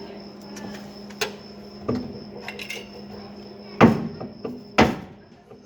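Sharp metallic knocks and clatter on sheet metal during stick-welding repair of a car fender: a few light taps, then two loud knocks about four and five seconds in, over a steady low electrical hum.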